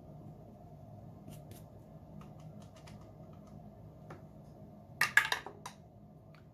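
Scratching at a paper scratch-off spot: a few light scattered ticks, then a short burst of quick, sharp scratching strokes about five seconds in as a number is uncovered.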